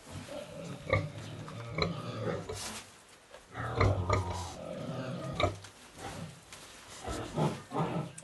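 Sow and her newborn piglets grunting and squeaking in short bouts while the piglets suckle.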